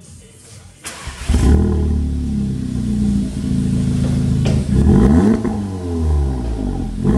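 Audi S3 8V's 2.0 TFSI turbocharged four-cylinder, breathing through an aftermarket Milltek exhaust, starting up about a second in, after a click, and settling into a steady idle. The throttle is blipped, a quick rise and fall in pitch, about five seconds in and again near the end.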